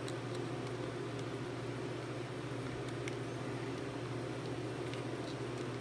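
Steady low background hum, with a few faint, light clicks scattered through it.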